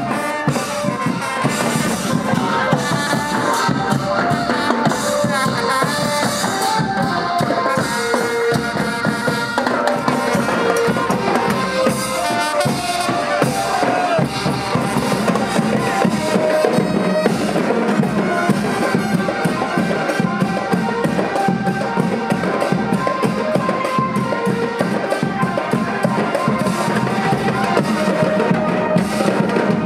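Festive Thai procession music: drums beating a steady dance rhythm under a melody line.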